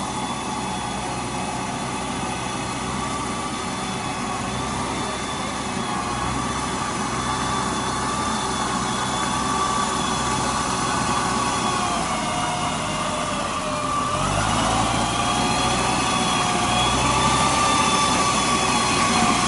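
Engine of a tracked rice-hauling machine running as it works through a waterlogged paddy, growing gradually louder. About two thirds of the way through, its pitch dips and then rises again as the load changes.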